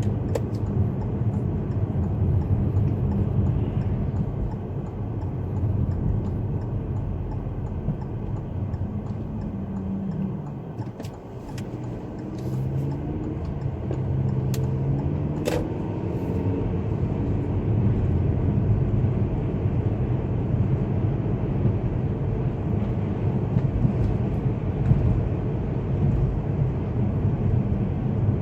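Steady low rumble of a car driving through a snowstorm, heard from inside the cabin: engine and tyre noise on the road, with a single sharp click about halfway through.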